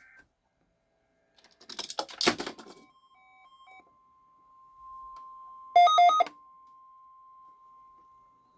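NOAA Weather Radio warning alarm: a steady single 1050 Hz tone starts about three seconds in, right after a short loud burst of crackle, and holds on. About six seconds in, three quick, louder electronic beeps sound over it, the kind a weather radio receiver gives when the alarm tone activates it.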